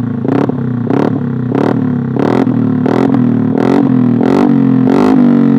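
Yamaha Aerox scooter's single-cylinder engine with an Eternal aftermarket racing exhaust, its throttle blipped about eight times in quick succession over a rumbling idle. The revs drop back near the end.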